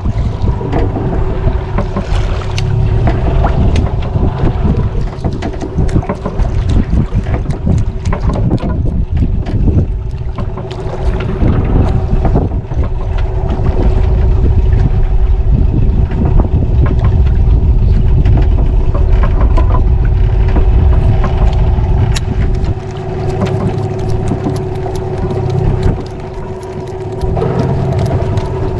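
A wooden fishing boat's engine running at a steady idle, a constant hum under heavy wind buffeting on the microphone that eases for a few seconds near the end. Faint scattered clicks sound over it.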